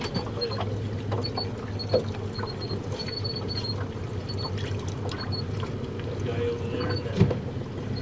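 A boat engine runs at a low, steady idle for slow trolling, with water sloshing at the hull. Two short knocks sound on the boat, one about two seconds in and a louder one near the end.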